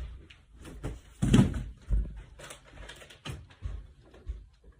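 A few scattered knocks and thumps indoors, the loudest a little over a second in and another about two seconds in, with smaller ones later.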